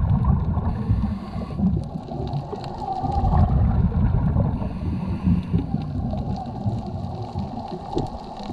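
A scuba diver breathing through a regulator underwater: the exhaled air bubbles out as a low burbling rumble that swells and eases in stretches of a few seconds.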